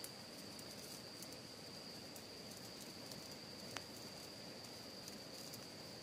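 Wood fire in a small folding fire pit, under meat grilling on a wire mesh, crackling faintly with sparse small pops, one a little sharper near the middle, over a low hiss and a steady high thin tone.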